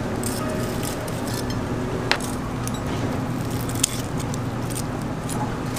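Light clicks and clinks of metal tongs handling food over a steady background hum, with two sharper clicks about two and four seconds in.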